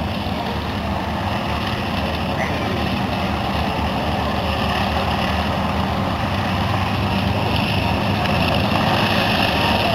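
Avro Lancaster's four Rolls-Royce Merlin V12 engines running steadily as the bomber taxis toward the listener, growing gradually louder near the end.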